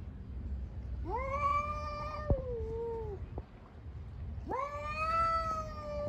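Street cat yowling at another cat in a fighting standoff: two long, drawn-out caterwauls, each rising at the start and sagging in pitch at the end. A brief sharp click sounds during the first.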